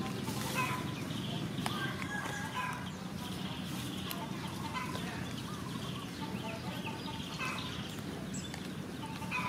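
Birds calling in the background, short clucking and chirping notes, over a steady low rumble of ambient noise.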